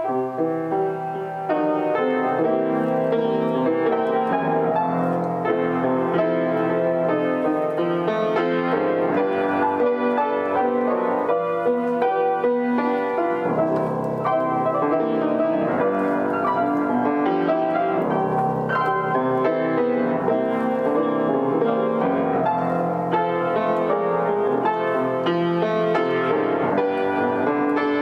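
Wooden upright piano being played by hand: a song with full chords under a melody, at an even loudness.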